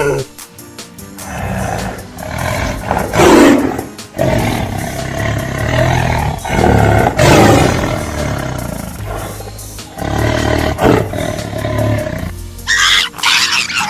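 A big cat roaring and growling several times, the loudest roar about three seconds in, over steady background music; a different, higher-pitched animal call begins near the end.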